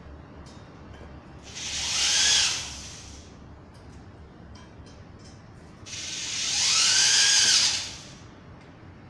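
Electric drill-driver run in two bursts, the first about a second long and the second about two seconds, its motor pitch rising and then falling each time as it works into the wooden bed frame.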